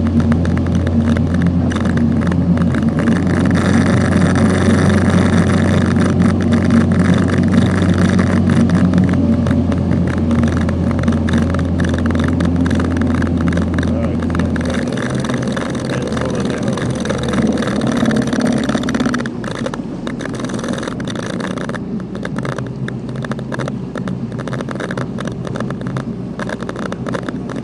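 Small boat's motor running steadily under way, with water and wind noise. It throttles back about halfway through, and drops again to a quieter slow speed a few seconds later.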